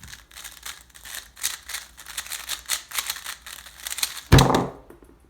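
A Tornado V3 M magnetic 3x3 speedcube being turned very fast, a dense rattle of clicking turns over about four seconds. A single loud thump follows about four seconds in as the solve ends, the hands slapping down to stop the timer.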